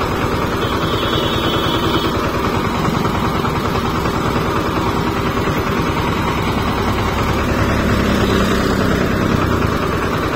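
Small farm tractor's diesel engine running steadily as it drives along at road speed, a continuous pulsing rumble.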